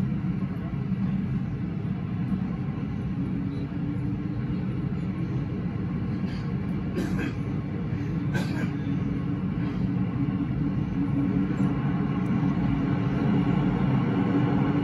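MTR M-train heard from inside the car, running out of a station with a steady low rumble that grows louder over the last few seconds as it enters the tunnel. Two short sharp clicks fall about halfway through.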